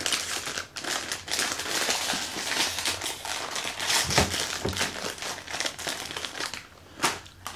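A crinkly snack bag, a bag of Doritos chips, rustling and crackling steadily as it is opened and handled, easing off near the end.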